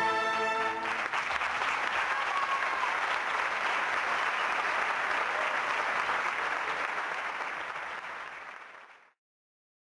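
A brass band's held final chord ends under a second in, then the audience applauds. The applause fades away and cuts off near the end.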